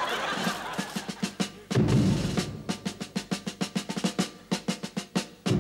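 Applause dying away, then a drum kit starting a song's intro: quick, evenly spaced strokes, about seven a second, with a heavy bass-drum hit about two seconds in and again near the end.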